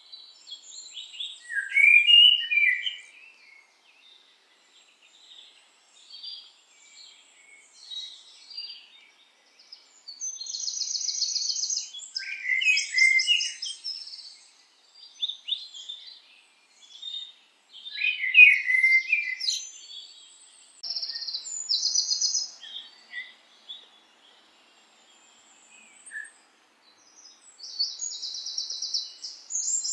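Birds calling and chirping, in loud spells a few seconds apart with quieter stretches between; some calls are short falling whistles, others buzzy trills.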